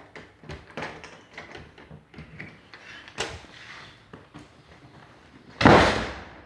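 A run of small clicks and knocks, then, about five and a half seconds in, a loud door sound that fades out over most of a second: a door being opened or pushed shut.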